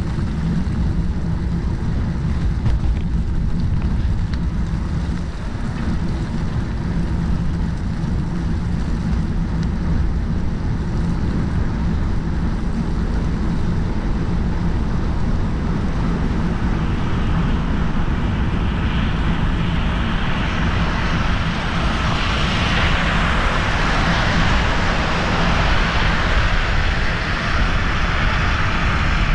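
Bicycle riding noise: a steady low rumble of wind on the microphone and tyres on the road. A hiss grows from about halfway and is loudest near the end.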